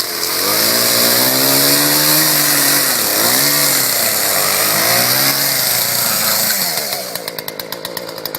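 Small gas-powered two-stroke chainsaw revved to full throttle and cutting wood, its engine pitch sagging twice under load and recovering. It drops back to a pulsing idle about seven seconds in.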